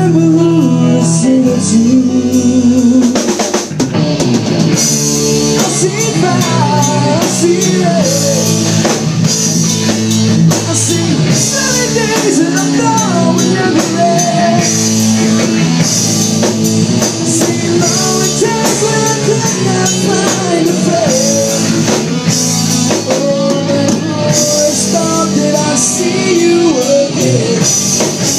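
Live rock band playing an instrumental intro: electric guitars, including a lap steel with gliding melody lines, over bass and a drum kit.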